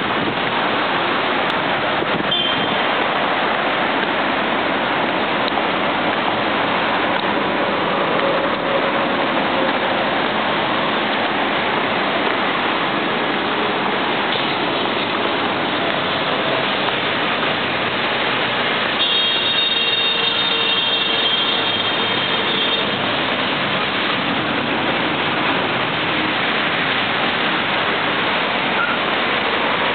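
Steady road traffic on a busy multi-lane urban expressway, cars passing in a continuous rush, mixed with wind blowing over the microphone.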